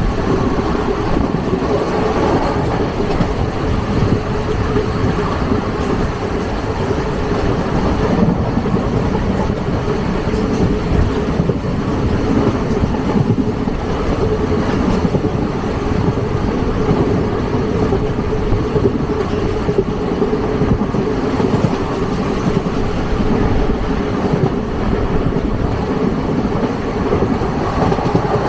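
Indian Railways passenger train running at speed, heard from inside the coach: loud, steady wheel-on-rail running noise with a constant low hum.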